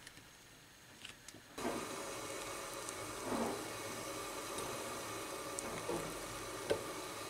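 A steady background hum with soft scraping and a few light clicks of a metal spoon scooping thick strained-yogurt cream cheese out of a cloth-lined bowl.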